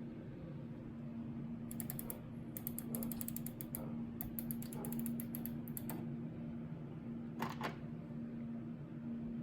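Rapid runs of sharp clicks, like a washing machine's rotary program dial being turned through its detent positions, with two single clicks later. A steady low hum runs underneath.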